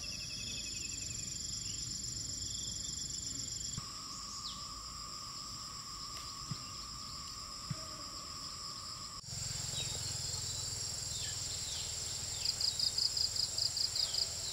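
Insects trilling in a steady, high-pitched chorus. Near the end a pulsed chirp of about five beats a second joins it.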